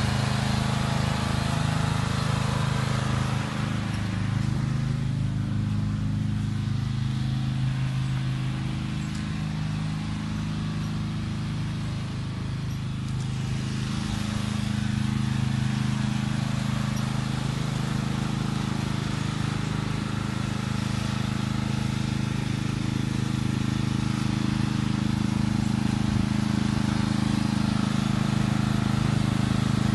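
Lawnmower engine running steadily, a little quieter for several seconds in the first half and then louder again.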